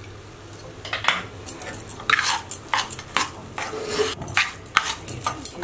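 Metal spatula stirring thick, cooked-down carrot halwa in a kadhai. It scrapes and knocks against the pan in irregular strokes, starting about a second in.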